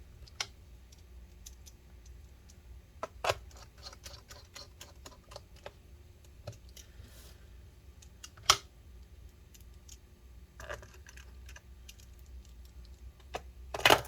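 Light clicks and ticks of small screws and a small screwdriver working in a laptop's plastic bottom cover as the screws are put back in, with a few sharper knocks, the loudest about 8.5 seconds in and near the end.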